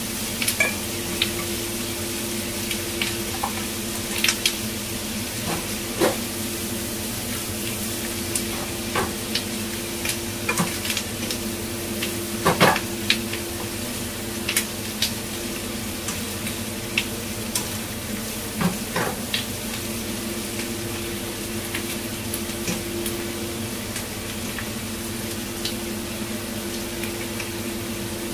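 Pork belly and garlic chive flowers sizzling in a nonstick wok as a nylon spatula stirs and turns them, with irregular clicks and scrapes of the spatula against the pan. A steady low hum runs underneath.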